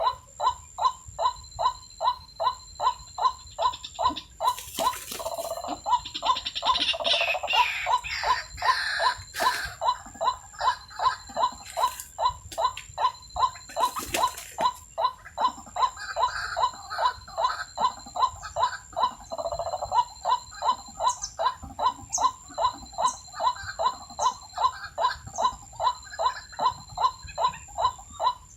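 White-breasted waterhen call repeated steadily, about two notes a second, the monotonous calling used to lure the birds. A louder, rougher sound overlaps it between about four and ten seconds in, with a couple of sharp clicks.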